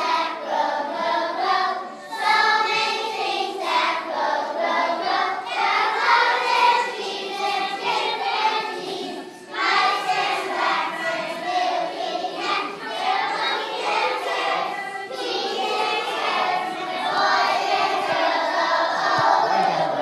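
A group of young children singing together as a choir, with a musical accompaniment, pausing briefly about halfway through.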